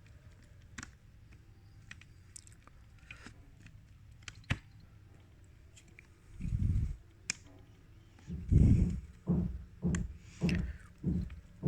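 Hands working on a CD player's loading mechanism: scattered light clicks of small parts being handled and fitted. From about two-thirds in comes a run of dull low knocks, roughly two a second.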